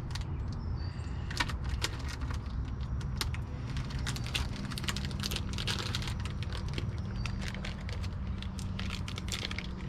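Plastic bag of Senko soft-plastic worms crinkling and rustling in the hands as it is worked open, a run of irregular crackles and clicks, over a steady low rumble.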